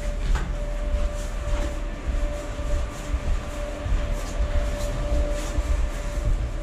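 Steady low rumble of a ship's machinery with a constant hum, and footsteps knocking on the steel deck every half second or so.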